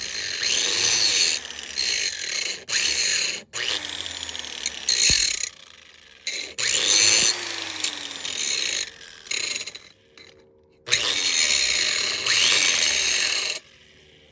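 DeWalt DW402 angle grinder grinding down welds on cast iron in repeated passes. The wheel is pressed on and eased off every second or two. The grinding stops near the end.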